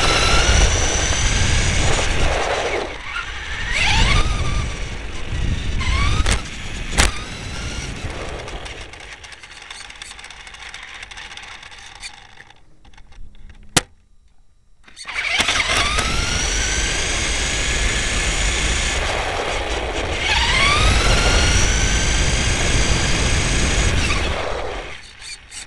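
RC car's motor whining and climbing steeply in pitch each time it speeds up, several times over, with tyre rumble on the asphalt, picked up by a camera mounted on the car itself. Midway it falls nearly silent for about two seconds, broken by a single sharp click.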